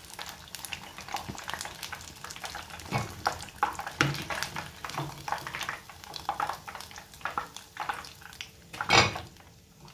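Hot oil crackling and sizzling in a saucepan around pieces of battered fish being deep-fried, with light knocks of a wire-mesh skimmer lifting the pieces out. A louder clatter comes near the end.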